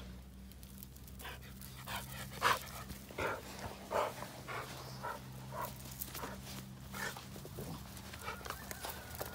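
American Staffordshire terrier panting close to the microphone, short breaths about two a second.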